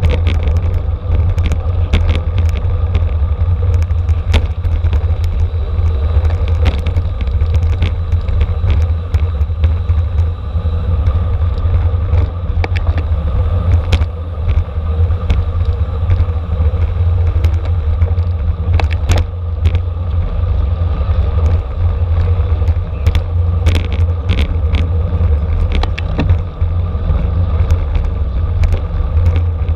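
Steady, heavy wind rumble on the microphone of a camera riding along on a racing road bicycle at speed, with tyre and drivetrain noise and many short clicks and rattles.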